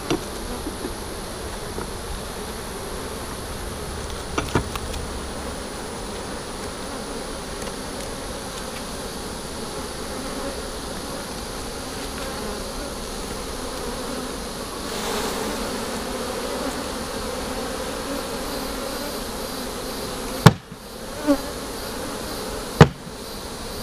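Honeybees buzzing steadily around an open hive: the even hum of many bees. Two sharp knocks sound near the end, louder than the buzzing.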